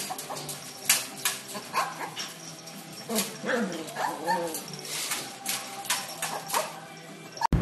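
Puppies yipping and whimpering in short cries that rise and fall in pitch, most of them in the middle stretch, amid scattered sharp clicks.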